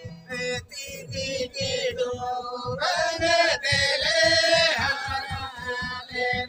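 Santali banam folk fiddles bowed together while voices sing a chant-like folk song along with them. A loud sung phrase rises over the fiddles about three seconds in and drops back near five seconds.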